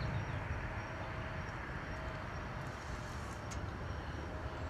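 Steady outdoor background noise: a low rumble with an even hiss over it, and no distinct events.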